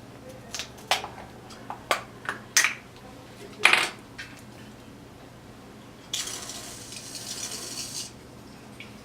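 A string of sharp clinks and knocks from dishes and utensils. Then an aerosol can of whipped cream hisses steadily for about two seconds as cream is sprayed onto the pancakes.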